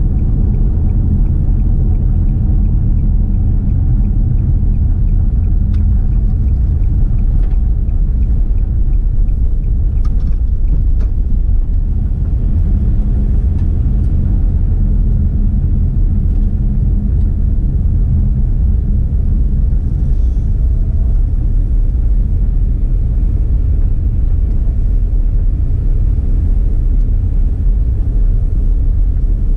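Steady low rumble of a car running, with a faint quick regular ticking over roughly the first nine seconds.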